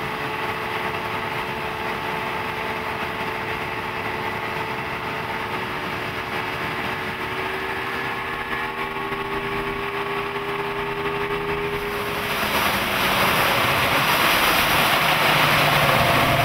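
Yamaha 200 hp outboard running steadily at idle. About twelve seconds in, a louder rush of water and wind comes up over the engine as the boat gets moving.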